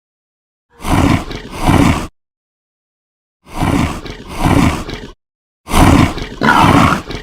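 Three loud animal roar sound effects, each about a second and a half long and swelling twice. They are cut apart by dead silence, and the third runs on past the end.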